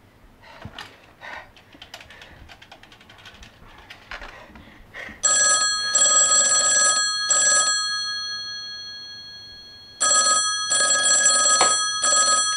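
Telephone ringtone ringing twice, each ring a quick run of short bursts of steady bell-like tones, the first about five seconds in and the second about ten seconds in. Before it comes a run of faint light clicks and taps.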